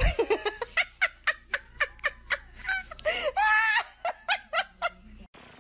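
A person laughing in a rapid run of short high-pitched giggles, about three to four a second, with a longer drawn-out laugh about three seconds in; it cuts off abruptly near the end.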